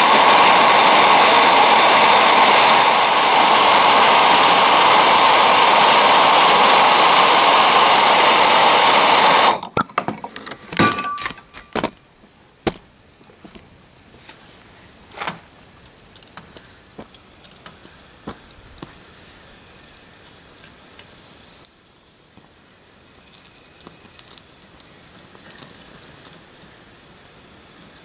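Handheld gas torch running steadily, a loud hissing flame heating a steel muzzle brake red hot. It cuts off suddenly about nine and a half seconds in. Scattered light metallic clinks and taps follow.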